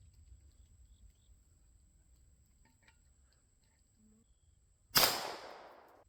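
A single .22 LR pistol shot from a Browning Buck Mark about five seconds in: a sharp crack that rings out and fades over about a second. Before it there is only faint background.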